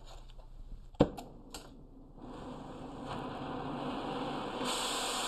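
Gas cutting torch being lit: a sharp pop about a second in, a few small clicks, then the steady hiss of the torch flame from about two seconds, growing louder, with a stronger high hiss near the end.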